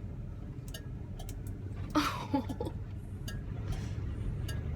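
Low, steady drone of a 1971 Oldsmobile Cutlass S engine and road noise heard from inside the moving car, with scattered light ticks and clicks.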